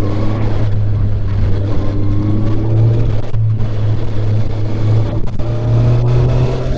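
Honda CBR650R's inline-four engine and exhaust pulling under acceleration while riding, its pitch climbing slowly, with brief dips about three and a half and five seconds in.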